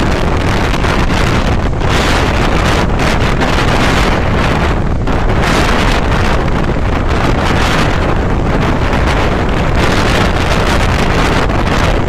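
Gusty thunderstorm wind buffeting the microphone, swelling and easing every second or two.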